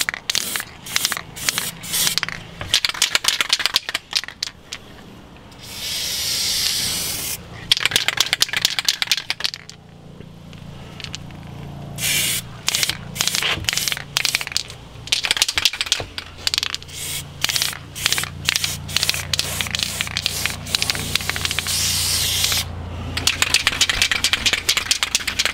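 Aerosol can of heat-resistant black paint spraying in many short hissing bursts, with a few longer sprays of about a second each.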